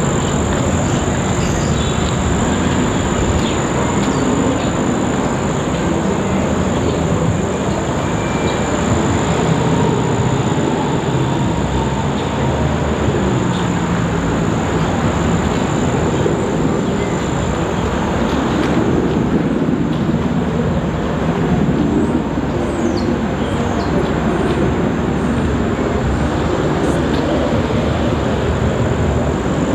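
Distant UH-60 Black Hawk helicopter: the steady low drone of its rotor blades, heard from far off.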